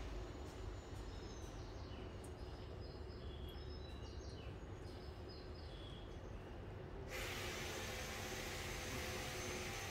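Station platform ambience: a steady low hum, over which a run of short, high chirps sounds for the first several seconds. A loud, even hiss cuts in suddenly about seven seconds in.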